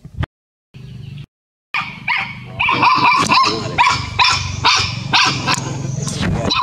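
A puppy yelping and barking over and over, about three calls a second, starting a little under two seconds in.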